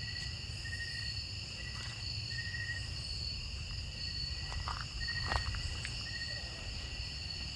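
Insect chorus of crickets, several steady high-pitched trills layered together, one of them sounding in short repeated phrases, over a low rumble. A couple of faint clicks come about five seconds in.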